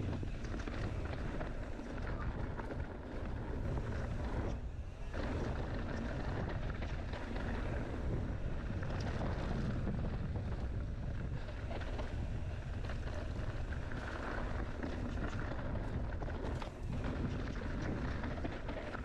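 Wind rushing over the microphone, with the tyres and frame of a mountain bike clattering over rough, rocky trail on a fast descent.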